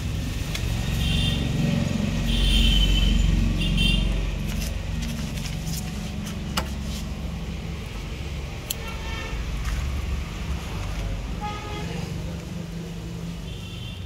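A motor vehicle's engine rumbling close by, loudest about two to four seconds in, with short high-pitched sounds over it several times.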